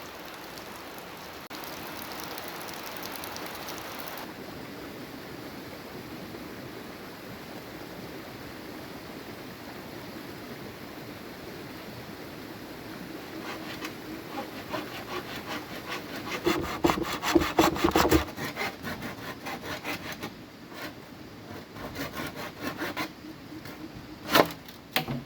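A saw cutting bamboo: a run of quick, repeated saw strokes starts about halfway through and is loudest a little later, then eases into lighter strokes, with a sharp knock just before the end.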